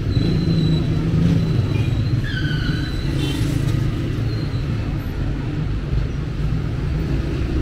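Street traffic: car engines running close by, a steady low rumble, with a few faint high chirps about two to three seconds in.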